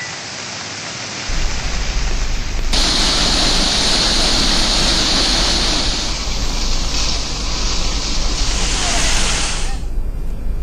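Rushing floodwater: a steady roar that fills out about a second in, turns brighter and hissier from about three seconds in, and cuts off near the end.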